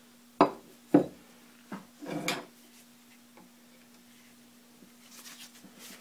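Hand tools knocking against the cast-iron gearbox of an Atlas metal lathe: two sharp metallic clicks about half a second apart, a lighter tap, then a short scrape. A faint steady hum sits underneath.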